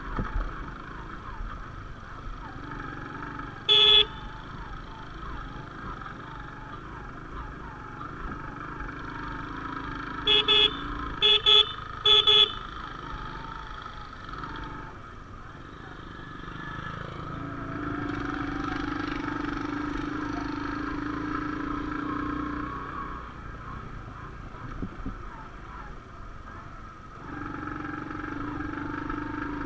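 Honda CD80 motorcycle's small single-cylinder engine running while riding over a rough track, with four short horn beeps: one about four seconds in, then three in quick succession around ten to twelve seconds. The engine gets louder for a few seconds about two-thirds of the way through.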